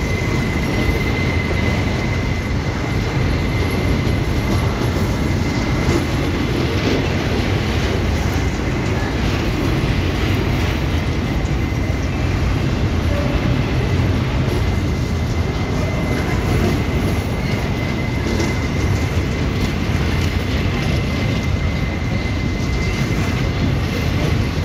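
Freight train of covered hopper wagons rolling past close by: a steady, loud rumble and clatter of steel wheels on the rails. A thin high-pitched wheel squeal runs over it, clearest at the start and near the end.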